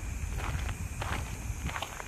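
Footsteps of a person walking at a steady pace along a park path, with short scuffing steps about twice a second over a faint steady hiss.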